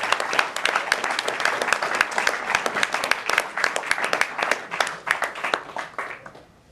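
Audience applauding, with sharp claps from someone close by; the applause dies away about six seconds in.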